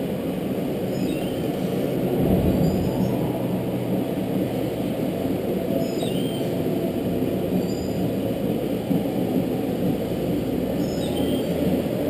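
Go-kart running at speed around an indoor track, heard on board: a steady muffled rumble of the kart's motor and wheels on the concrete, with faint short high squeaks every couple of seconds.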